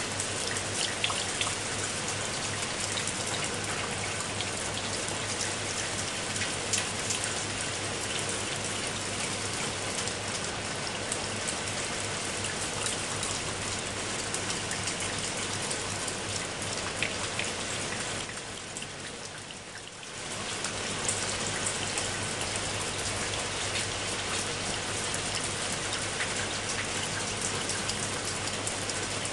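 Heavy rain falling in a steady hiss, with many close, separate drop hits ticking through it. It dips quieter for about two seconds about two-thirds of the way through, then comes back to full strength.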